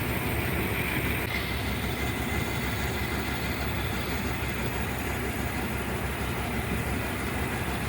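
Dodge Ram 1500's 5.2-litre V8 idling steadily and running smoothly, its crank-no-start fault cured by a new distributor cap.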